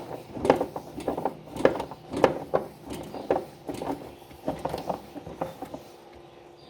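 Hand tools and metal washing-machine parts being handled during assembly: irregular light clicks and knocks, several a second at times, dying away near the end.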